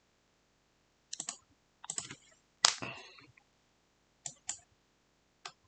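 Computer mouse and keyboard clicks, a few at a time with pauses between, the loudest about two and a half seconds in.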